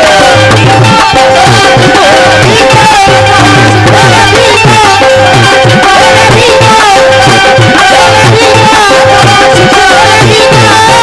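Qawwali music: a harmonium playing held notes and a melody over a steady hand-drum rhythm, loud and continuous.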